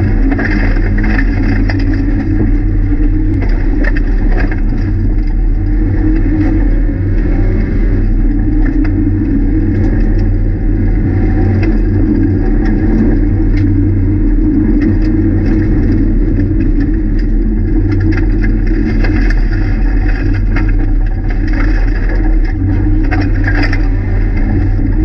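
Rally car's engine pulling at a fairly steady speed, heard from inside the stripped, caged cabin, with gravel and stones ticking and rattling against the underside of the car.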